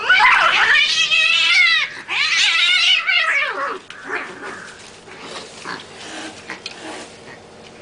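Cat yowling in a fight: two long, loud, wavering yowls back to back, then fainter, broken sounds over the next few seconds.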